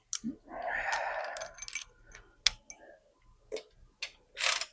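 Hand ratchet working a bolt: irregular clicking and short rasping runs of the pawl, with single ticks between. The ratchet is worn: "a little tired."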